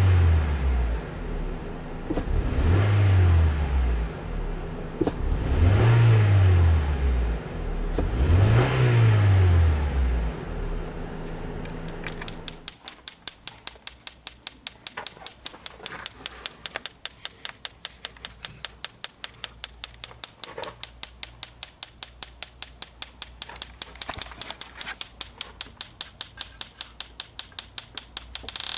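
Honda Fit L15A engine revved four times in a row, each rev rising and falling about every three seconds; the engine stumbles when the throttle is opened, a misfire. About twelve seconds in, the engine sound stops and a steady, rapid ticking of about four or five clicks a second takes over.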